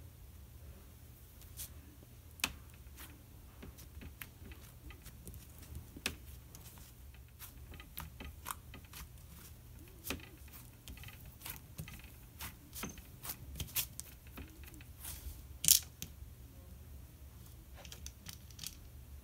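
Brown cloud cream slime being stretched, poked and pressed by hand, making scattered small sticky pops and crackles, with one louder pop late on, over a faint low hum.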